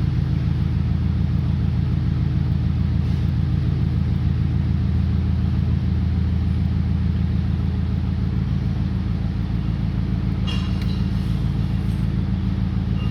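Steady low mechanical hum with a few pitched lines, running evenly throughout, with a short spell of clicking about ten seconds in.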